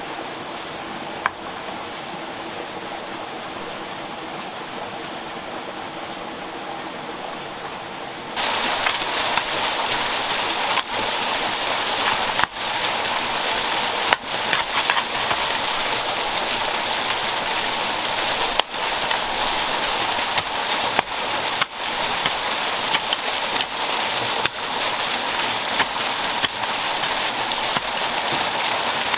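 Steady rush of flowing stream water, louder and brighter from about eight seconds in. Over it come a few dull knocks as a wooden digging stick breaks up clay.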